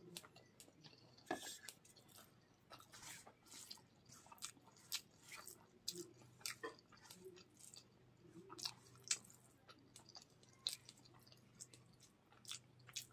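Close-up mouth sounds of chewing a mouthful of rice and fish curry: faint, irregular wet clicks and smacks. Fingers squish and gather the rice on a banana leaf in between.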